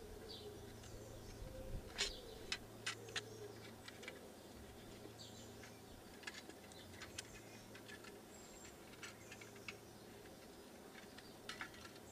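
Faint, scattered clicks and taps of a metal exhaust heat shield and its clamps being handled and fitted onto a Harley-Davidson Sportster's header pipe, with a cluster of clicks about two to three seconds in and a few more near the end.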